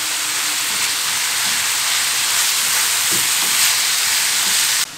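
Ground beef with onion and peppers sizzling in oil in a frying pan while being stirred with a wooden spatula; a steady hiss that cuts off suddenly near the end.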